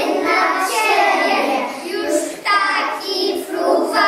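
A group of preschool children singing a song together in Polish.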